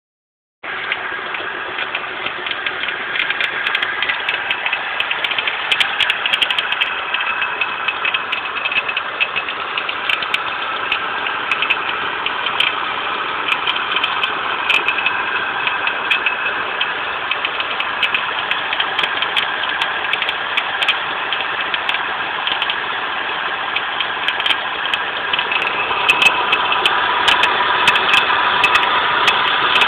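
Volvo 850's five-cylinder engine running steadily, with a steady whine over the engine noise from a bad idler pulley on the accessory belt. It gets slightly louder near the end.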